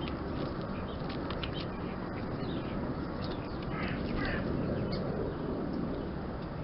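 Garden birds at a feeding spot: a short, rough bird call about four seconds in, with scattered small ticks over a steady background noise.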